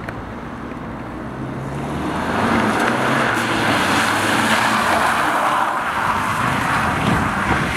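A BMW car coming round a wet roundabout towards and past the camera. Its engine note builds from about a second and a half in, over a loud hiss of tyres on the wet road, and the sound eases off near the end.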